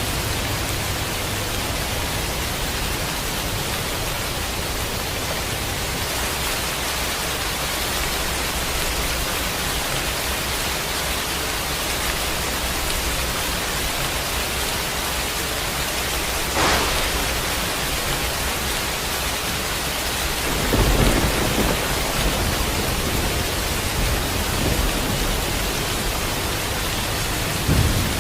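Steady rain, with a sharp crack of thunder a little past halfway, then low rolling thunder rumbling from about three-quarters of the way through and swelling again near the end.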